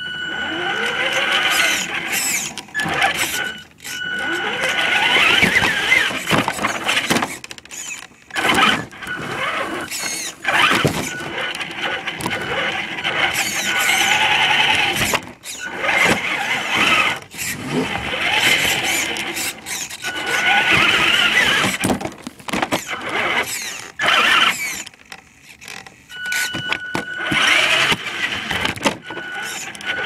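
Small electric motor of a toy remote-control car whining at full power in repeated surges, its pitch rising as it speeds up, with short breaks between runs. A steady high tone sounds in some of the pauses.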